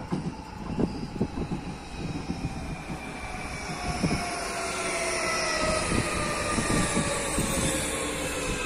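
Electric train or metro coming into the station, its motor whine slowly falling in pitch as it slows, with irregular knocks from the wheels on the track. The sound grows louder as it draws near.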